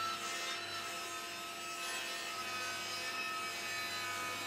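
Table saw running and ripping an edge-glued board lengthwise to width, the blade cutting steadily through the wood.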